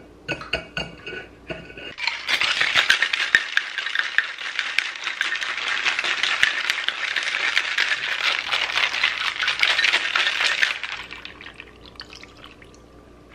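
Ice rattling in a cocktail shaker being shaken for about nine seconds, starting about two seconds in, after a few light clinks of glassware.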